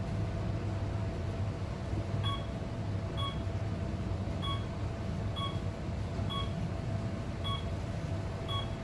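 Elevator car in travel with a steady low hum, and a short electronic beep repeating about once a second from about two seconds in.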